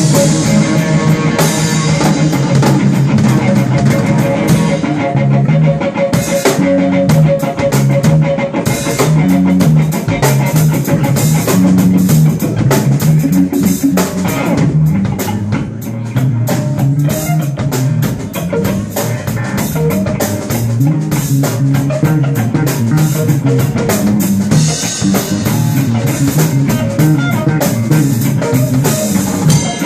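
Live rock band playing: electric guitar and electric bass through amplifiers over a drum kit, with a steady drum beat throughout.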